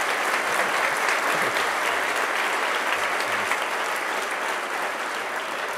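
Audience applauding steadily, easing off slightly near the end.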